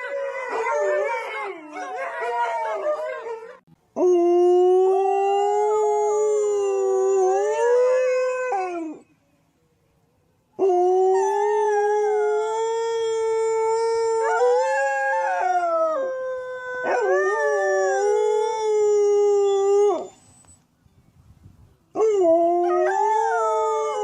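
Dogs howling. Several voices waver together at first, then come long, drawn-out howls of a few seconds each, held at a steady pitch and separated by short pauses. A second howl overlaps one of them partway through.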